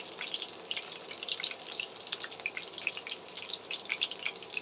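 Onion flower stalks deep-frying in hot oil in a wok: a steady sizzle with many small, irregular crackles and pops.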